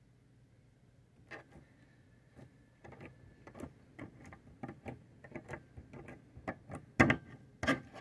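Slime being pressed and poked with fingers, giving a run of irregular wet clicks and pops that starts about a second in and grows louder, the loudest near the end.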